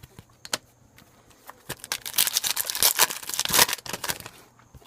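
Foil trading-card pack wrapper being torn open and crinkled, a dense loud run of crackling from about two seconds in, after a few faint clicks of card handling.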